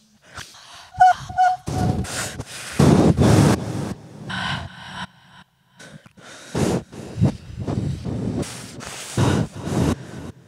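Breaths and gasps into a microphone, amplified over a stage sound system: about half a dozen sharp, noisy breaths, each under a second, with short pauses between, and two brief high blips about a second in.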